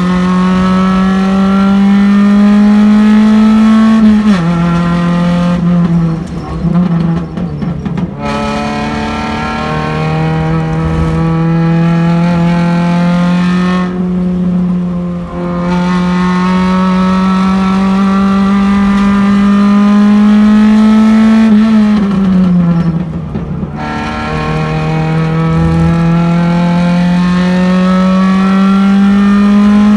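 Race car's engine heard from inside the car at speed, its pitch climbing steadily under acceleration. The pitch drops sharply about four seconds in and again near the end as it shifts up. Twice it falls away and stutters as the throttle is lifted for corners.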